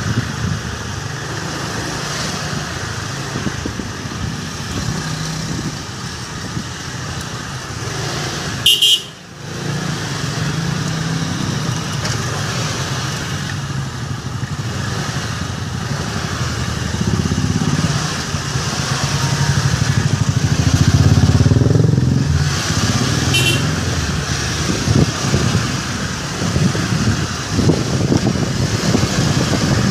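Small motor scooter engines running at low speed, the engine note wavering and swelling louder around twenty seconds in. Two brief high-pitched beeps cut through, one about nine seconds in and another about twenty-three seconds in.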